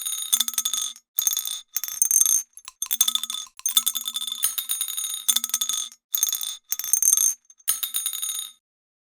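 Japanese railroad crossing warning bells (the fumikiri 'kan-kan') ringing in rapid, layered strikes, chopped into about nine short bursts that cut in and out abruptly, stopping near the end.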